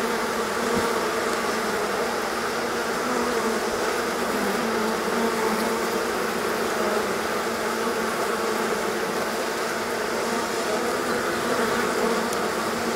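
Steady buzzing of many honeybees flying around and crawling over the hive entrance, a colony in the middle of swarming.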